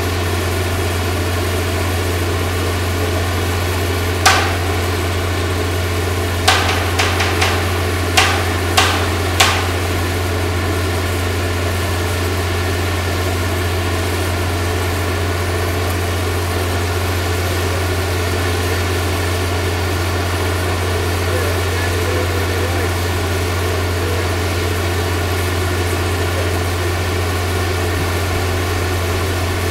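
A mobile crane's engine idles steadily. Sharp knocks cut through it, once about four seconds in and then in a quick run of six or so between about six and ten seconds in.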